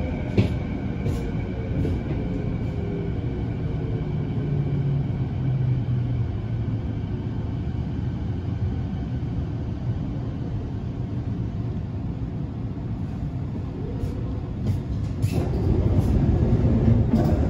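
Canada Line SkyTrain (Hyundai Rotem) electric train pulling out of an underground station, heard from inside the car. The electric drive whines in shifting tones under a steady wheel-on-rail rumble, which gets louder near the end as the train runs into the tunnel.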